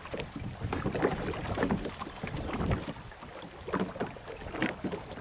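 Irregular knocks, clicks and rustling in a fishing boat as a landing net with a lure's hook snagged in its mesh is handled, with some wind rumble on the microphone.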